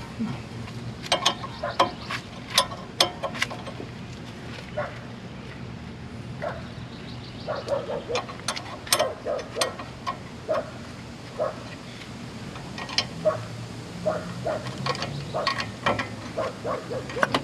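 Hand ratchet clicking in irregular runs of sharp clicks with short pauses between, as a brake caliper bracket bolt is worked loose and out.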